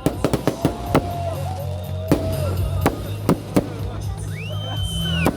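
Fireworks salute going off in a quick, irregular run of sharp bangs, with festive music playing loudly underneath. A high whistle rises, holds and falls about four seconds in.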